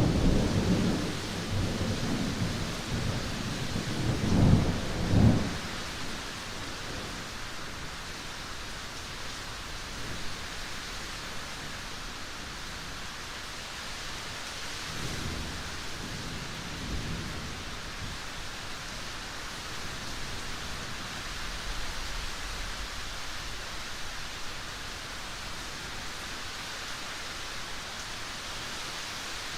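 Steady rain with a thunderclap at the start that rumbles on for about five seconds, swelling twice near its end. A fainter roll of thunder comes about halfway through.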